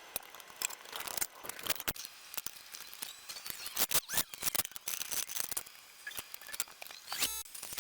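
Irregular clicks, taps and scrapes of hand tools and fittings being worked on a riding mower's fuel line at the carburetor.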